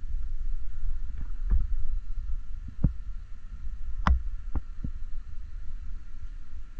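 Handheld camera handling noise: a steady low rumble with about six short knocks and bumps spread through, the loudest about four seconds in.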